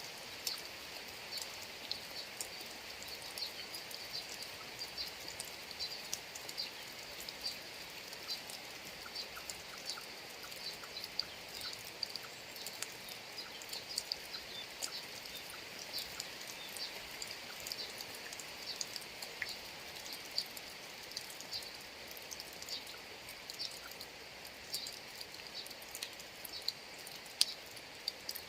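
Steady rain falling, with many individual drops ticking and pattering close by.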